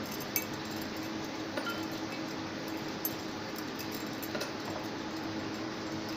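Hands pinching off soft balushahi dough in a steel bowl: a few faint clicks and clinks over a steady low hum.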